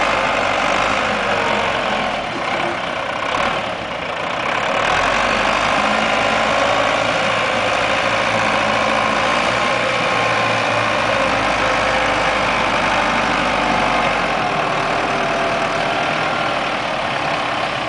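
Wheel loader's diesel engine running steadily as the machine carries a log and raises it high on its forks, easing briefly about three seconds in.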